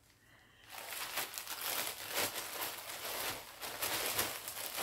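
Packaging crinkling and rustling as it is handled, a steady crackly rustle that starts just under a second in after a moment of quiet.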